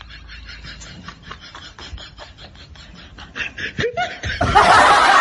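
A woman laughing. At first she snickers quietly in quick, regular breaths. About four seconds in she breaks into loud, open laughter.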